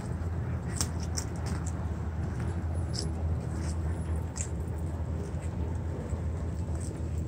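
Outdoor ambience of a walk across a grassy park: a steady low rumble, with a few light crunches and clicks about a second in, at about three seconds and again near four and a half seconds.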